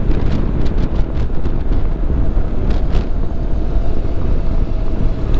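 Motorcycle on the move, heard from the rider's microphone: a steady low engine rumble under heavy wind buffeting, with a few light clicks.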